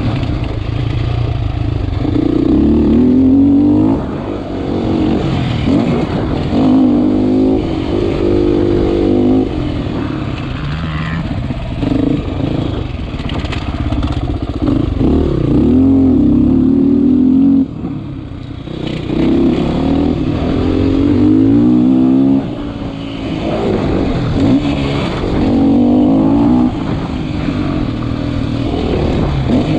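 Sherco SEF 450 single-cylinder four-stroke dirt bike ridden hard: the engine revs up in repeated rising sweeps, drops off briefly every few seconds as the throttle is shut or a gear changes, then pulls again.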